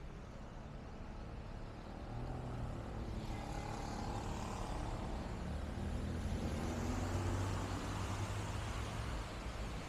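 A motor vehicle's engine running close by with the hiss of tyres on a wet street, growing louder from about two seconds in.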